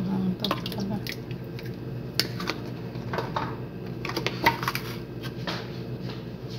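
Scattered light clicks and crinkles from hands handling a small seasoning packet over a plastic mixing bowl, with a steady low hum underneath.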